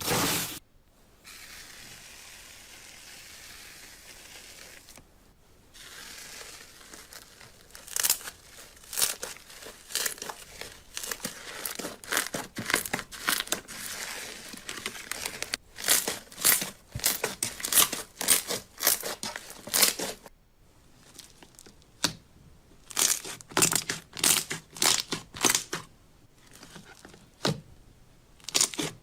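Slime being squeezed and pressed by hand, giving runs of sharp crackling, clicking pops. A soft steady hiss opens the stretch before the crackling begins.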